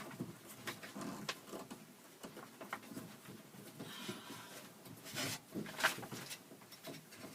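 Faint scattered clicks and rustling of hands working plastic wiring-harness connectors inside a minivan's sliding door, with a couple of sharper ticks about five and six seconds in.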